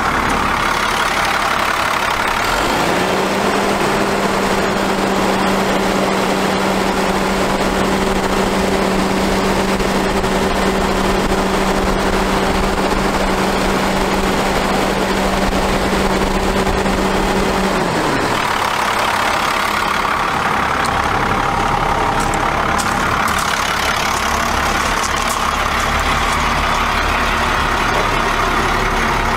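International DT466 inline-six diesel engine idling steadily. From about three seconds in until about eighteen seconds, a steady two-note hum rides on top of the engine noise, then falls away.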